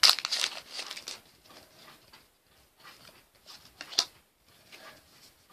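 Foil booster pack wrapper crinkling for about the first second, then faint handling rustles with one sharp tap about four seconds in.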